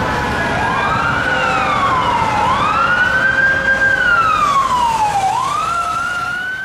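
Fire engine's Whelen Alpha electronic siren sounding its wail tone: slow, smooth sweeps rising and falling in pitch, about three in all, over low traffic rumble.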